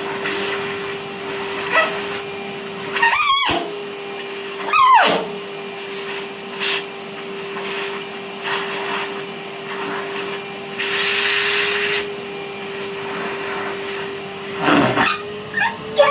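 Vacuum cleaner running with a steady motor hum and suction hiss, broken a few times by quick swooping changes in the airflow sound as the nozzle works over surfaces.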